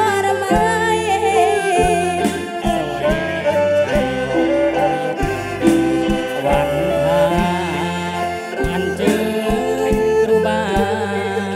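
Live kantrum band music: a singer over a brass section of trombone, trumpet and saxophones, with keyboards, guitars and drums keeping a steady beat.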